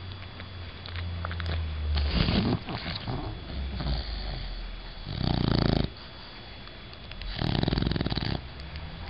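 A sleeping bulldog snoring: three loud, rasping snores two to three seconds apart, with quieter breathing between them.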